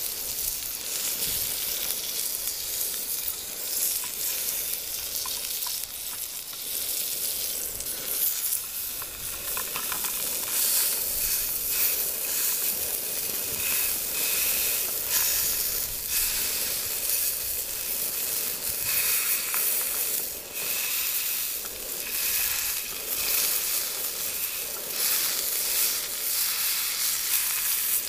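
Chicken breast frying in a small frying pan, a steady sizzle, with the frequent knocks and scrapes of metal tongs against the pan as the meat is turned and pressed.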